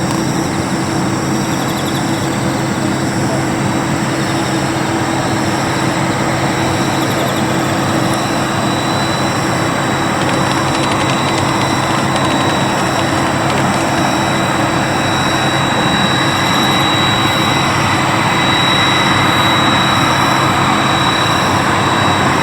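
Airliner engines running steadily, growing slowly louder, with a thin high steady whine that comes in about eight seconds in.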